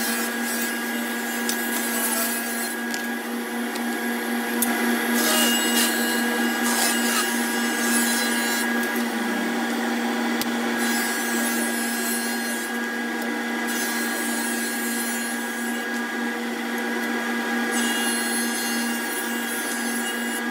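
Table saw running steadily, ripping thin strips of scrap pine, with the pitch of the motor holding and several louder cutting passes as each strip goes through the blade.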